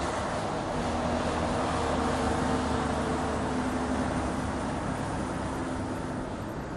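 Mercedes-Benz Actros truck driving at highway speed: steady diesel engine drone with tyre and wind noise. A humming tone holds from about a second in until shortly before the end.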